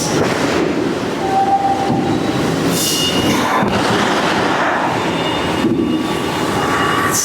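Steady, loud mechanical din of metalworking machinery, with brief high-pitched squeals about three seconds in and again near the end.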